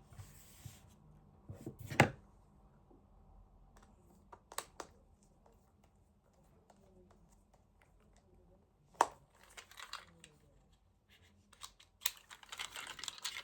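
Handling noises: scattered sharp clicks and knocks, the loudest about two seconds in and another about nine seconds in, with a patch of rustling and clicking near the end.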